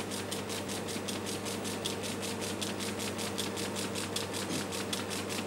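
UNIVAC 9300 line printer running, printing a table line after line as a rapid, even clatter of about eight strokes a second over a steady machine hum.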